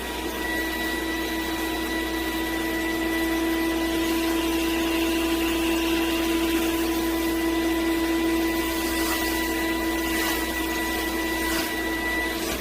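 Mattress dust-removal vacuum machine running steadily, its motor giving a constant hum with a high whine.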